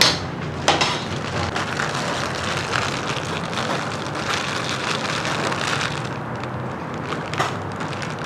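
Knife knocking into a durian's spiky husk on a wooden chopping block, then crackling and crunching as the blade cuts through the tough, fibrous husk. Two sharp knocks at the start and another near the end.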